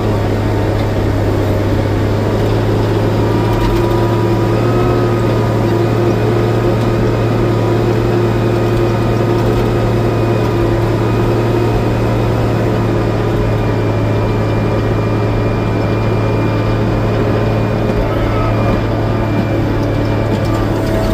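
Log skidder's diesel engine running at a steady speed, heard from the operator's cab, with a constant low drone and fainter steady whining tones above it.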